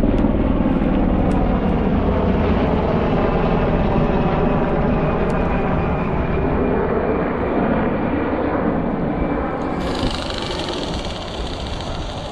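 Low-flying helicopter passing, its rotor beating rapidly and loudly throughout, easing off slightly near the end.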